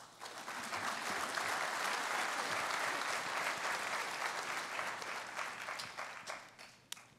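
Audience applauding at the end of a talk: the clapping swells quickly, holds for several seconds, then dies away near the end.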